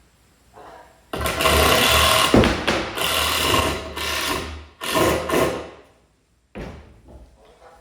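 A power driver running in about four short runs of a second or so each, driving screws into 2x4 lumber, followed by a fainter short sound near the end.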